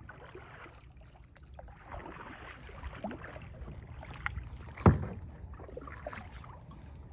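Paddling a plastic Lifetime Tamarack kayak on a pond: paddle strokes in the water with a few splashes, and a sharp knock about five seconds in.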